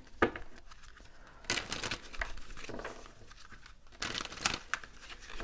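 A deck of tarot cards handled and shuffled by hand: a sharp tap near the start, then cards sliding and rustling against each other, once about a second and a half in and again about four seconds in.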